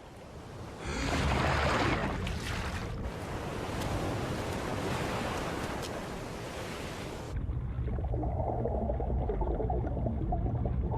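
Sea waves and surf washing, then about seven seconds in the sound cuts abruptly to a muffled, low underwater rumble.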